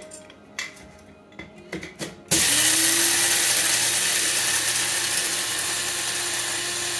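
A few light clicks and knocks as the Krups electric blade coffee grinder is handled. About two seconds in, its motor starts suddenly with a loud, steady whir, grinding coffee beans. It grows gradually quieter as the grounds go from crunchy to smooth.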